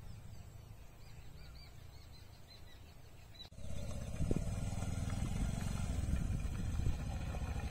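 Faint bird chirps over a low rumble, then, from about halfway, a small motorcycle's engine running loudly as it rides toward the microphone across a dirt field.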